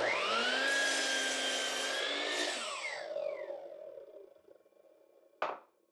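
Miter saw motor spinning up and cutting a block off a spruce 4x4, then switched off about two and a half seconds in and winding down with a falling whine. A single sharp knock near the end.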